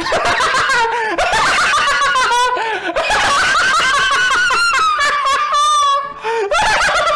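A high-pitched voice laughing and shrieking almost without a break, with a short pause about six seconds in.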